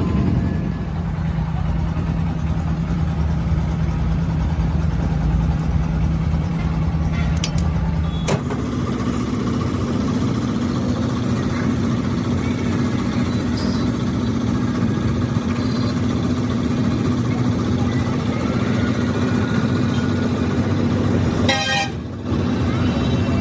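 A steady mechanical hum, like a running engine or motor, whose pitch steps up about a third of the way through with a sharp click. Near the end comes a brief loud burst with a horn-like tone.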